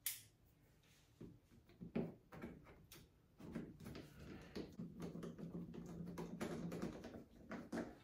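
Scattered clicks and knocks of a refrigerator's plastic cover panel being fitted back into place, with a low steady hum under the second half.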